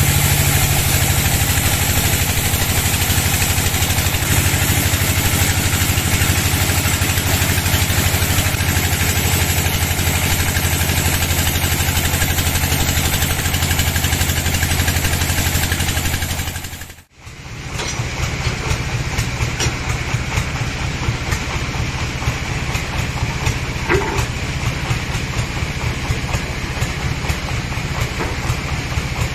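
Sawmill log bandsaw running and sawing through teak logs: a steady machine drone with a strong low hum. It drops out briefly just past the middle, then carries on a little rougher and more uneven.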